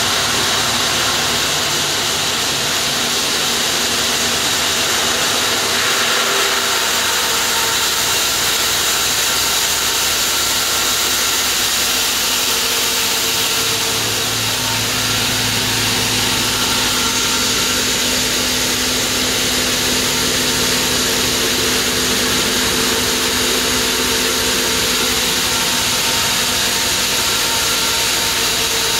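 Large water-cooled diamond disc block saw running steadily through a granite block: a continuous loud grinding hiss with a steady hum under it.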